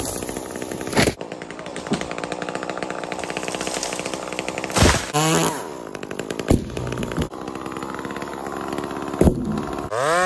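Two-stroke chainsaw running under load and revving up and down as it cuts, with the revs dipping and climbing again about halfway through. Several sharp cracks stand out above the saw. Right at the end it switches abruptly to a chainsaw held at a steady high rev.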